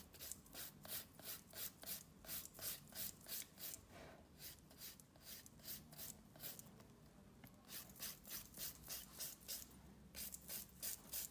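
Light, rhythmic strokes of a 180-grit nail file across a natural fingernail, about three a second, with a pause of about a second a little after the middle. The file is taking the shine off the nail plate without pressure, a prep step before semi-permanent polish.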